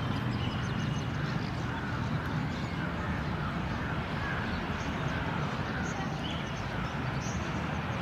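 Steady low outdoor rumble with faint, short wavering calls scattered through it.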